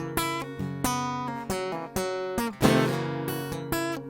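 Acoustic guitar playing an instrumental break in a folk song: a series of strummed chords, each left to ring, with no singing.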